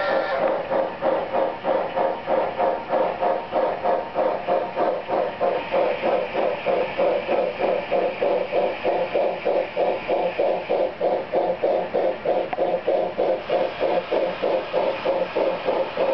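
Sound system of a model C&O H-8 Allegheny steam locomotive chuffing steadily, with even exhaust beats at about three to four a second as it runs.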